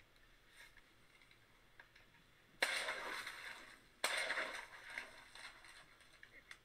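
Two shotgun shots about a second and a half apart, each a sudden loud blast that dies away over about a second, fired at teal passing over the marsh.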